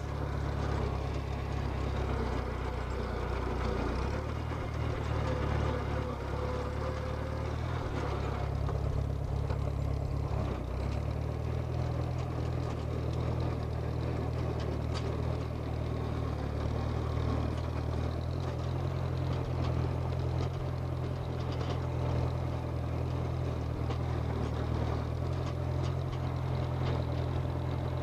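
Case 310 crawler bulldozer's engine running steadily as the dozer drives over the ground, its note shifting up and down a few times.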